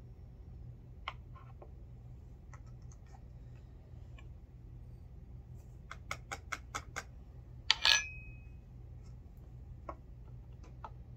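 Light clicks and taps of brass 300 Blackout cartridge cases being handled on a reloading bench, with a quick run of about six clicks a little past the middle and a sharp metallic clink that rings briefly about eight seconds in. A steady low hum runs underneath.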